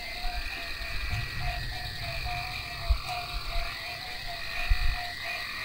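Frogs calling: a short croak repeating evenly about three times a second, over a steady high hiss and some low rumbling.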